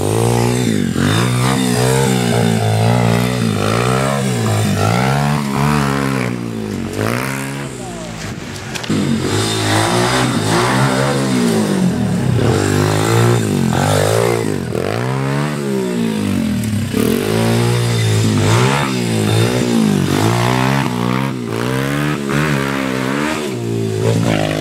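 Esse Factory pit bike's small engine being ridden hard, revving up and down over and over, its pitch rising and falling every second or two as the throttle is opened and closed.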